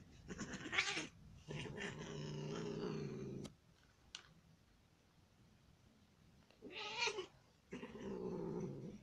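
Two cats tussling: short hisses and two long, low yowls, the first about two seconds long, with a quiet spell of about three seconds between them.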